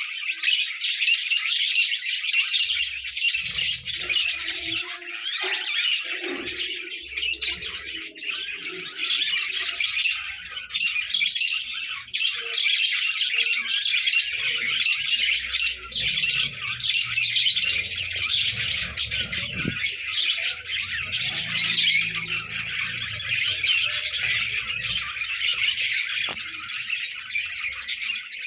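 A group of show budgerigars (English budgies) chattering and squawking continuously, many overlapping calls.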